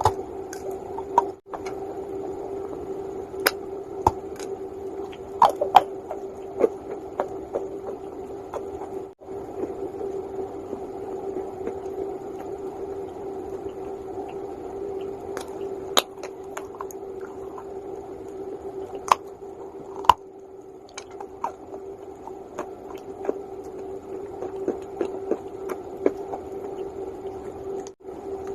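Calaba (uko) clay being crunched and chewed close to the microphone: irregular sharp cracks over a steady background hum.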